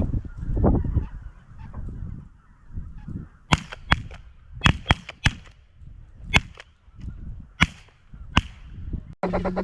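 Geese honking over a low rumble of wind buffeting the microphone, with a run of about nine short, sharp snaps in the middle.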